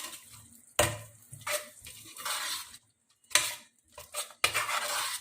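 A spoon scraping and knocking around inside a mixer-grinder jar, about six separate scrapes with short pauses between, the longest near the end, as ground cashew paste is emptied out.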